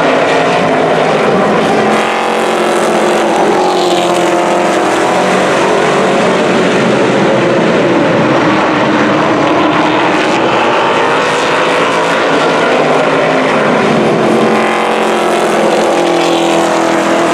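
A pack of outlaw late model stock cars racing on a paved oval, their V8 engines running hard together, the pitch sweeping down and back up as the pack goes around and passes close by near the end.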